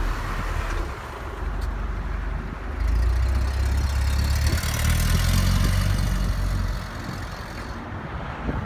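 1963 Pontiac Tempest's engine as the car pulls away, growing louder about three seconds in as it accelerates, then dropping off near the end as the car moves away.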